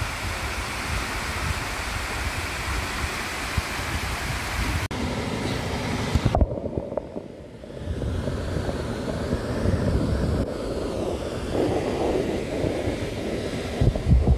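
Rushing water of a rocky river heard in the open air, then from about six seconds in muffled and low, with gurgling, as the microphone goes under the water; a few sharp splashy knocks near the end as it comes to the surface.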